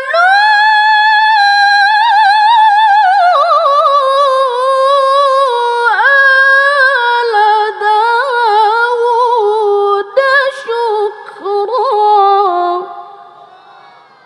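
A woman's voice reciting the Quran in melodic tilawah style: one long phrase that leaps up to a high held note, then slides slowly lower through rippling ornaments, with short breaths near six and ten seconds. The voice stops about thirteen seconds in and its echo fades away.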